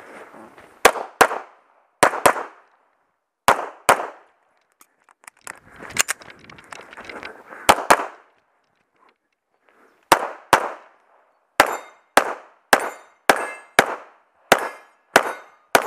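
9mm STI Tactical 5.0 pistol fired in quick double taps, five pairs over the first ten seconds or so, with rustling movement between them. From about twelve seconds in it fires an even string of single shots about every half second, each followed by a short metallic ring from a hit steel plate.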